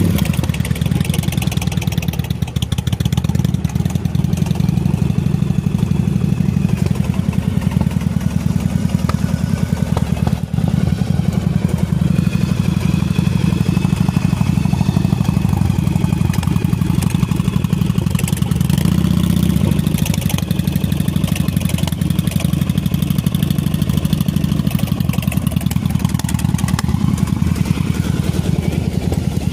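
Air-cooled V-twin cruiser motorcycle engine idling steadily.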